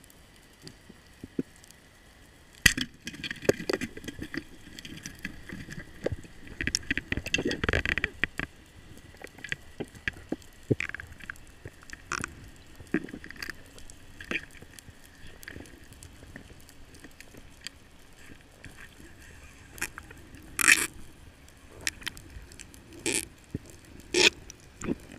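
Underwater noise picked up by a camera in its waterproof housing: scattered sharp clicks and knocks from the diver's gear and handling. They are busiest between about three and eight seconds in, with a few strong clicks again near the end.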